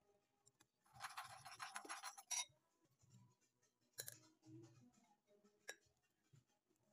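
Metal spoon stirring and scraping in a ceramic bowl of sauce: a short scraping rush about a second in, followed by a few light clinks.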